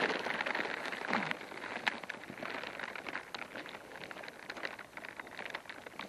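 Crackling, rustling sound of grass blades brushing against the onboard camera's microphone, a dense patter of tiny clicks that slowly fades.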